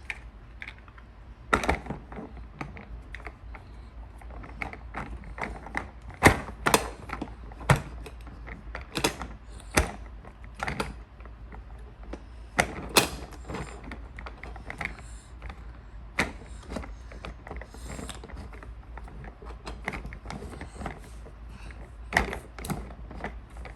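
Hard plastic parts of a Play-Doh Wheels cement truck toy clicking and knocking irregularly as they are worked by hand, with a dozen or so sharper clicks scattered through.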